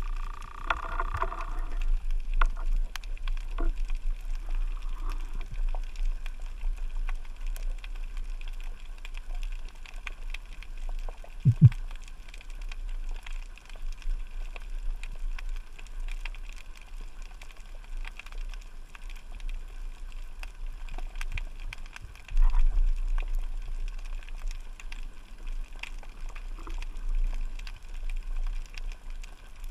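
Underwater ambience: a steady low rumble of moving water with many faint scattered clicks and crackles. A faint pitched hum fades out in the first two seconds, a brief low thump about twelve seconds in is the loudest sound, and the rumble gets louder about twenty-two seconds in.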